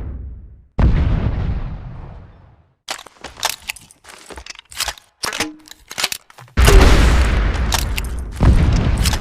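Sound-effect rifle-mounted grenade launcher: a heavy boom with a long fading tail, then a few seconds of sharp metallic clicks and clacks of the weapon being handled and reloaded, then two more heavy booms less than two seconds apart.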